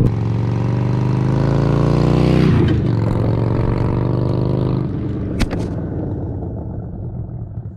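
Motorcycle engine accelerating hard, rising in pitch, with a brief dip about two and a half seconds in as it shifts up, then climbing again. It eases off about five seconds in and fades away, with a single sharp click shortly after.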